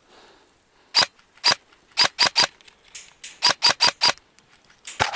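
M4-style airsoft rifle firing single shots: about a dozen sharp cracks in quick runs of two to four.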